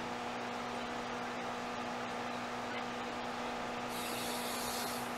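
Steady background hum and hiss with a constant low tone. About four seconds in, a brighter, higher hiss joins and stops near the end.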